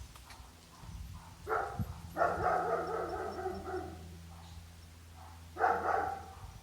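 A dog vocalising in three calls, the middle one drawn out for nearly two seconds, over a steady low hum.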